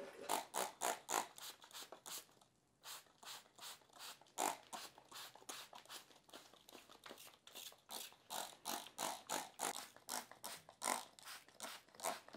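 Hand trigger spray bottle of plain water squirted again and again at an aluminium transaxle case, about three quick hissing squirts a second, rinsing off wheel cleaner.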